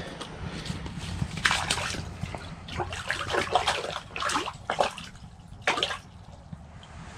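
A crappie being released into an ice-fishing hole, splashing and sloshing the water in the hole in several short splashes.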